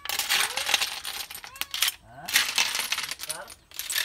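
Cooked sikad-sikad sea-snail shells clinking and clattering as a metal ladle scoops them from a metal pot into a serving dish. The clatter comes in runs, with short pauses about halfway through and near the end.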